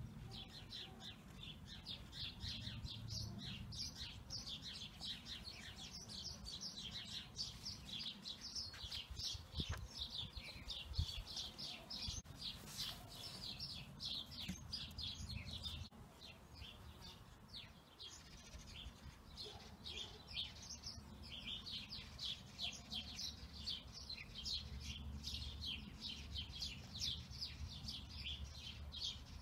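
Small birds chirping rapidly and continuously, briefly thinning out around the middle, over a low steady rumble.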